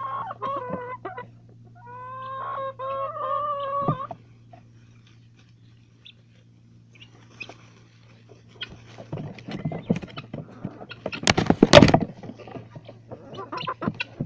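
Chickens calling: two drawn-out, wavering calls in the first four seconds. After a quiet stretch comes a run of scratching, rustling and pecking noises, with a loud flurry near twelve seconds.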